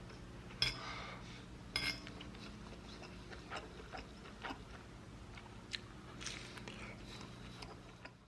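Quiet eating sounds: scattered clinks and ticks of cutlery on dishes with chewing, the two loudest clinks about half a second and two seconds in, over a low steady hum.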